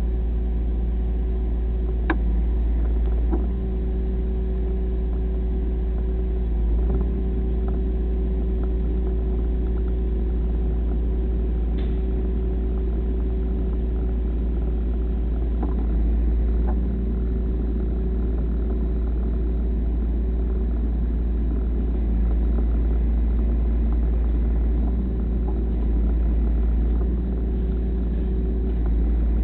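Massey Ferguson tractor engine running steadily, with a few faint clicks and knocks.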